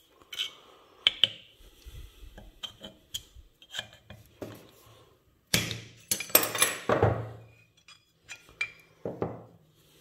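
Metal clinks and knocks of a rusty hand plane being taken apart: a steel punch is struck against a plane part clamped in a vise, and loose metal parts clatter. Scattered single taps come first, then a quick loud run of knocks about halfway through.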